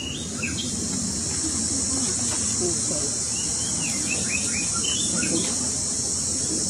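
A steady, high-pitched buzz of insects throughout, with two short runs of quick, thin bird chirps: one at the start and another around the middle.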